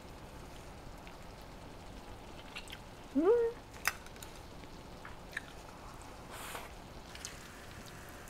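A person chewing quietly while tasting food, with a short rising "mmm" hum about three seconds in. A few light clicks of chopsticks against a bowl come after it.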